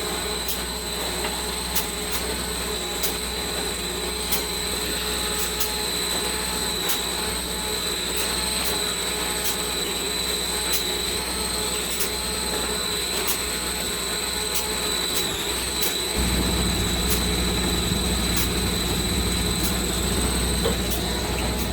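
Steady drone of a running engine with sharp, regular taps of hammering over it, about one or two a second. About three quarters of the way through, the engine's low hum steps up and gets louder.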